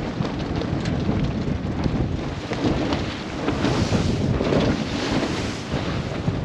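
Strong wind buffeting the microphone over the rush of rough sea against a sailing yacht's hull. A louder rush of water swells up about halfway through.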